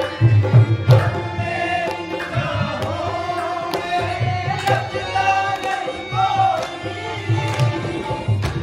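Live devotional song: a male voice singing over a harmonium's held chords, with hand-drum strokes beneath.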